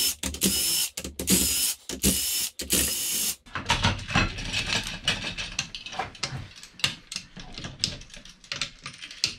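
Cordless power driver with a socket whining in several short bursts, backing out bolts on top of a Kawasaki 1500 four-stroke jet-ski engine's cylinder head. After about three and a half seconds it stops and a run of sharp metal clicks and clinks follows, from a hand ratchet and loosened cam-cap parts.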